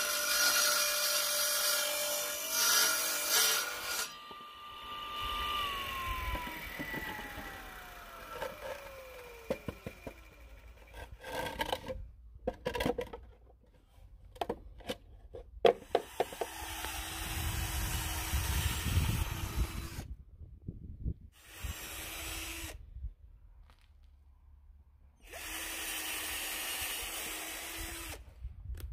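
A small benchtop table saw cuts a pallet board, then is switched off and its blade winds down in a long falling whine. After a few knocks of wood being handled, a cordless drill drives screws into the wooden box in three bursts of a few seconds each.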